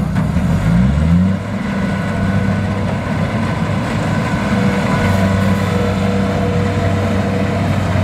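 Kubota DC-70 combine harvester's diesel engine running as it cuts rice. The engine pitch wavers up and down for about the first second, then holds steady.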